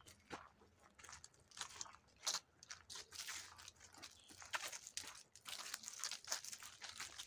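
Footsteps crunching through dry fallen leaves on a path, in quick irregular crackles.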